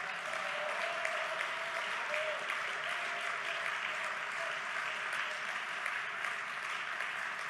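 Sustained applause from a large seated audience, steady and even throughout.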